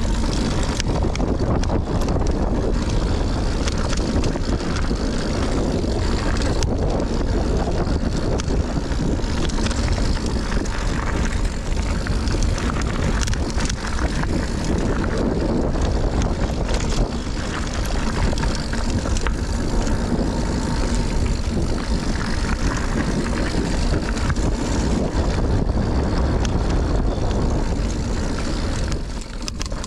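Wind buffeting a GoPro's microphone on a mountain-bike descent, over the steady rush of knobby tyres rolling on a dirt trail, with the Scott Ransom full-suspension bike's chain and frame rattling over bumps. The noise dips briefly near the end.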